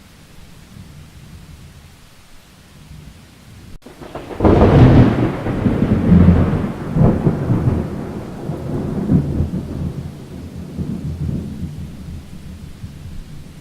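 A sudden thunderclap about four and a half seconds in, followed by a rolling rumble that fades over several seconds, over a steady hiss of rain.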